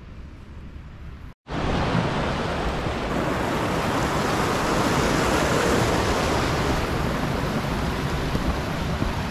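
Faint wind rumble at first. Then, after a sudden cut about a second and a half in, the steady loud rush of a mountain stream tumbling over rocks in a small cascade.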